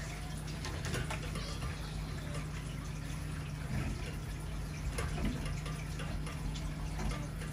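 Water running steadily to flush a kitchen drain pipe, an even rushing hiss with a few faint ticks and a steady low hum beneath it.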